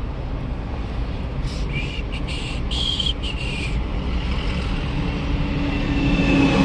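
Road and engine noise inside a moving vehicle, a steady low rumble. A brief broken high-pitched squeak or chirp comes about a second and a half in, and a steady engine tone grows louder near the end.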